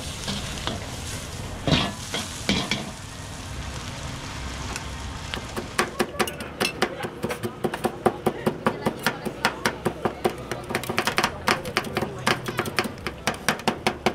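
Street-food cooking: food frying and sizzling in a pan, then from about five seconds in a metal utensil strikes the pan in a quick, steady rhythm of about three to four strokes a second.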